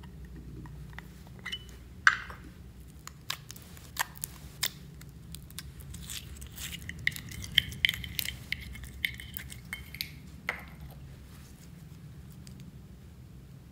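Donut-shaped tin of slime being opened with a sharp click about two seconds in, then fingers scooping clear glitter slime out of the tin: wet squelches mixed with clicks and clinks against the tin.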